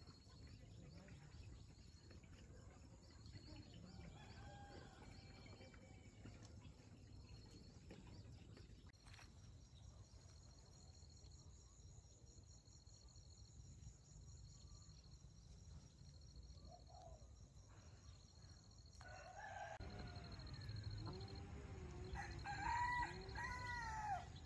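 A rooster crowing near the end, its calls rising and falling, over quiet rural background.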